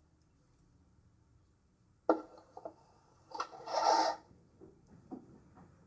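Tools and small parts handled on a workbench: two knocks, then a short scraping rub, then a few light clicks.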